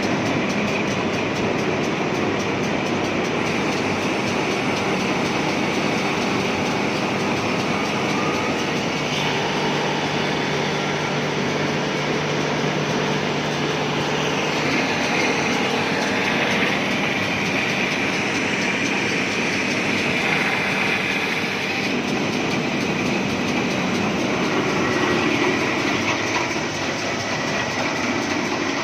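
Wood moulding machine running, its cutter heads planing teak. It makes a dense, steady machine noise with a high whine.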